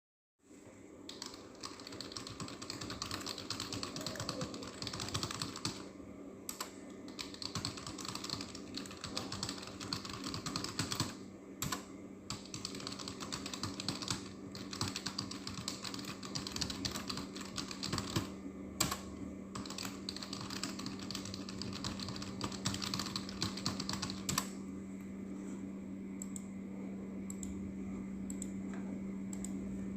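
Computer keyboard typed on quickly and continuously, a rapid run of key clicks broken by a few brief pauses, thinning to sparse, quieter keystrokes about 24 seconds in. A steady low hum runs underneath.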